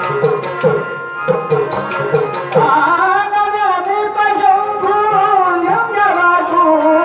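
Devotional bhajan music: a hand drum beats a steady rhythm over held harmonium tones, and about two and a half seconds in a man's voice comes in with a long, wavering sung line over the accompaniment.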